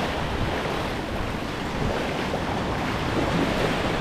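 Small surf waves washing and foaming over the shallows, with wind buffeting the microphone.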